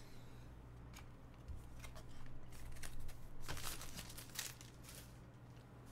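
Faint rustling and crinkling of trading cards and wrapped card packs being handled, with scattered light clicks, busiest from about two to four and a half seconds in.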